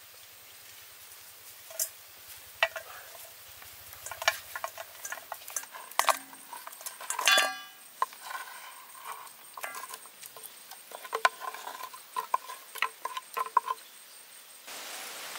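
Cooked beef ribs tipped out of a bamboo tube into a stainless steel bowl: scattered clicks and knocks of bamboo and food against the metal, with one louder ringing knock about seven seconds in.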